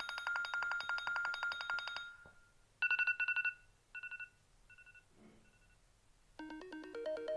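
Mobile phone ringtones. A fast-trilling ringtone ends about two seconds in. A short electronic ring burst follows and repeats four times, each fainter than the last. Near the end a new melodic ringtone of short pitched notes begins.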